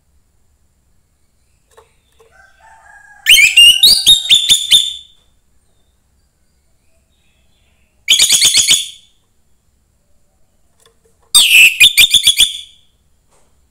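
Young wild orange-headed thrush singing: three loud phrases of fast, repeated high notes, separated by pauses of a few seconds, with faint lower whistles just before the first phrase.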